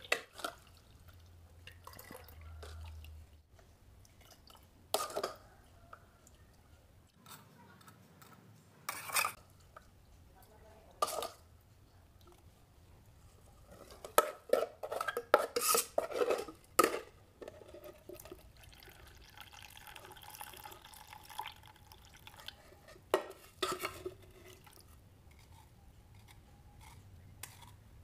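A metal ladle clinking and scraping against a stainless mesh strainer and the pot as sauce is ladled and strained, with liquid dripping. The knocks come scattered, with a quick run of clinks and scrapes about halfway through.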